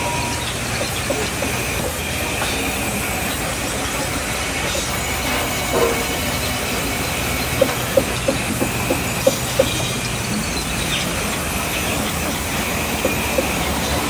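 Sawmill band saw running steadily as it cuts through a large log, with a quick run of sharp knocks a little past halfway.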